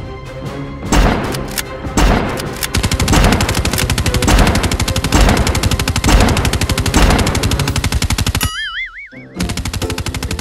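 Rapid automatic gunfire, a dense run of about a dozen shots a second, over background music with a heavy beat. Near the end the firing stops for under a second while a short warbling tone sounds, then starts again.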